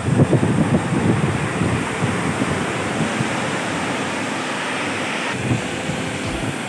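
Sea surf breaking and washing up a sandy beach, with wind buffeting the microphone. The wind rumble is strongest in the first couple of seconds.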